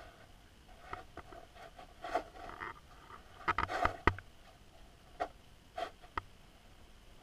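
Irregular clicks and knocks picked up by a submerged camera, with a quick cluster of sharper knocks about three and a half to four seconds in and a few single clicks later on.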